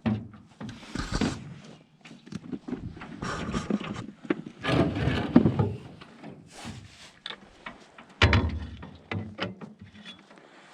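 Irregular knocking and rubbing of gear against a canoe, with a heavier thump about eight seconds in.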